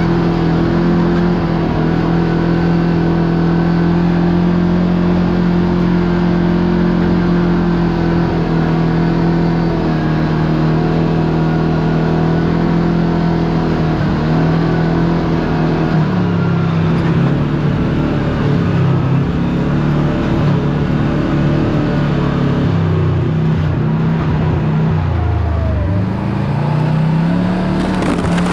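Side-by-side UTV engine running under way at a steady pitch for about fifteen seconds, then the revs rise and fall, dropping low about twenty-five seconds in before climbing again.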